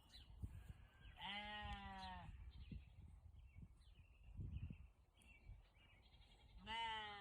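Belted Galloway cattle mooing faintly: one drawn-out moo about a second in and a shorter one near the end. A brief low muffled rustle comes about four seconds in.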